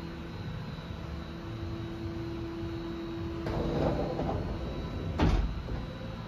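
Sliding sheet-steel enclosure door of a Haas VF-2SS vertical machining center running along its track for about a second, then stopping with a sharp knock near the end. A steady hum with a few fixed tones runs underneath.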